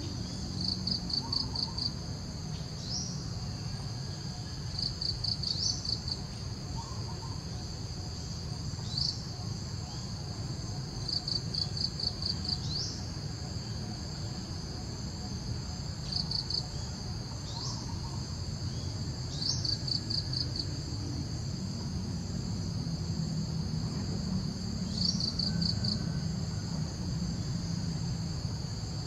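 Insects calling steadily: a constant high-pitched buzz, with short bursts of rapid pulsed trills every few seconds. Brief rising chirps come in here and there over it, along with a faint low rumble.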